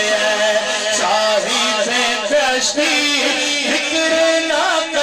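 A man's voice singing a slow devotional chant into a microphone, holding long, wavering notes.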